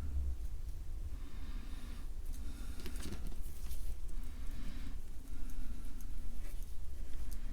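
A flat-blade screwdriver scraping and stirring thick two-part epoxy in repeated strokes, over a steady low hum.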